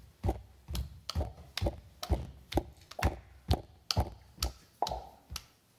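Heavy footsteps at a steady walking pace, about two dull thudding steps a second.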